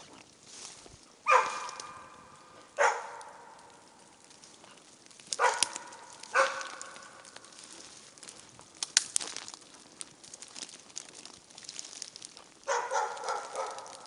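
Hunting dog barking at a moose it has found: four single barks a second or more apart, then a quick string of barks near the end.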